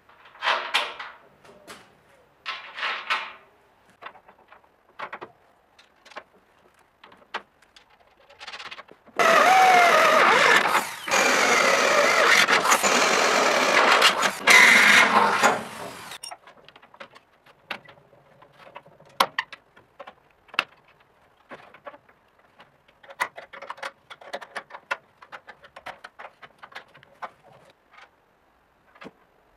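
Cordless drill boring into steel: a loud, sustained whine whose pitch wavers, from about 9 to 16 seconds in. Scattered clicks and clinks of metal parts being handled come before and after it.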